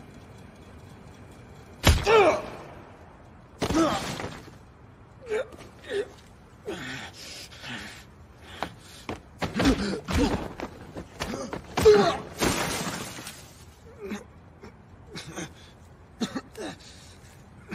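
A fistfight: a sharp hit about two seconds in with a falling pained cry, then further blows and a young man's grunts, shouts and gasps.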